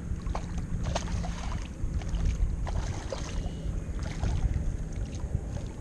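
Wind buffeting the microphone over water sloshing around a kayak, with scattered light clicks and small splashes as a hooked fish is played near the hull.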